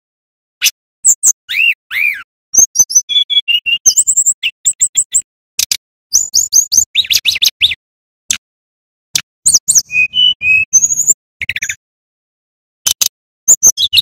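Male brown-chested jungle flycatcher singing a fast, varied song of sharp clicks, high whistles and short arched whistled notes, in bursts broken by brief pauses.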